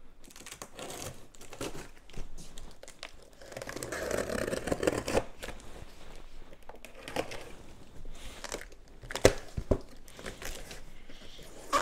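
Large cardboard box being opened with a utility knife: packing tape slit and cardboard flaps rustling and tearing, with a couple of sharp knocks about three-quarters of the way through.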